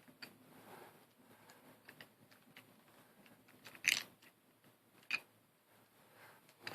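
Plastic pieces of a V-Cube 7 puzzle cube being handled and fitted during reassembly: faint small clicks and scraping, with two sharper clicks about four and five seconds in.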